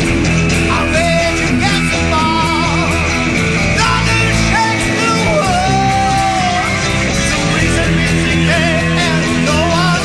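Rock music instrumental section: a lead guitar plays sustained, bending notes with vibrato over a full band backing with a steady beat.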